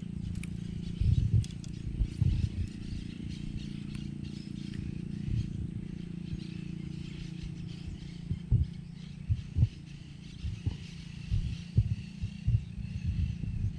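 Outdoor lagoon-side ambience: a steady low hum with a faint high hiss above it. Irregular short low thumps come through, more often in the second half.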